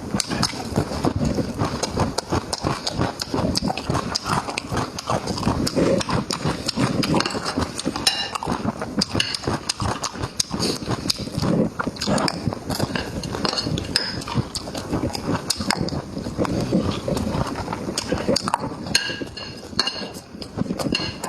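A person chewing food with loud, rapid wet lip-smacks and mouth clicks, close to the microphone.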